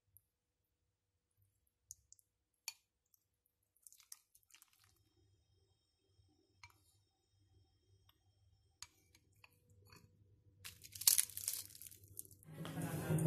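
Chopsticks and a spoon clicking lightly against ceramic bowls a few times, then a louder crisp crinkling and crunching about eleven seconds in as a sheet of dried seaweed (gim) is torn and wrapped around rice.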